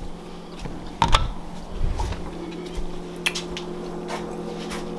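Household handling noises: a sharp click with a thump about a second in, a short low rumble, then a few light clicks, over a steady low hum.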